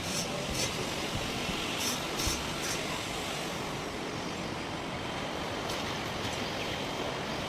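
Steady rushing background noise, with a few faint clicks in the first three seconds.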